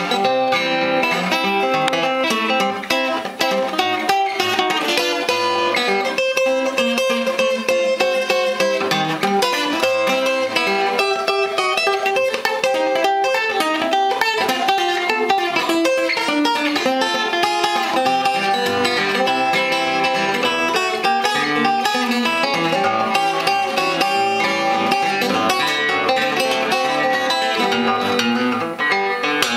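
Circa-1890s Ditson Empire parlor acoustic guitar, with laminated rosewood back and sides and a spruce top, played fingerstyle: a tune of plucked single notes and chords.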